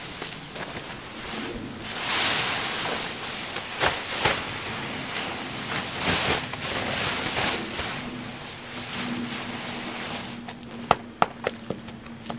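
Ice-covered nylon tent rainfly being pulled off and shaken out: a stiff, crinkling rustle with crackling as the frozen fabric flexes. A few sharp clicks come a little before the end.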